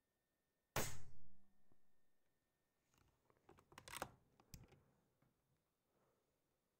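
A single shot from an Altaros .22 PCP air rifle: a sharp report less than a second in that dies away over about a second and a half. About two seconds later comes a run of clicks and knocks as the rifle is handled.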